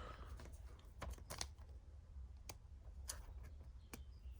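Faint, scattered clicks and light taps of trading cards being handled and slid into plastic sleeves, a handful of them spread irregularly over a low steady hum.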